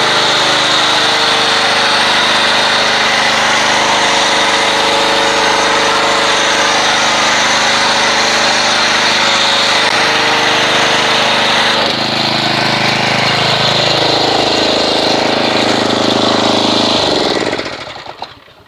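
Pressure washer running an MTM PF22 foam cannon, spraying soap foam: a steady motor hum under the hiss of the spray. About twelve seconds in the sound changes and the pitch sags, and shortly before the end the machine shuts off and winds down.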